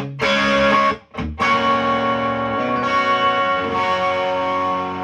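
Electric guitar played through a Matchless Lightning Reverb tube amp at master full up, very distorted: two short chord stabs, then a chord left ringing out.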